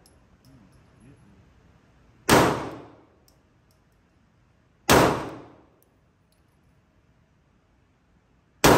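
Three pistol shots fired slowly, a few seconds apart, each ending in a short echo that dies away in the indoor range; the third comes near the end.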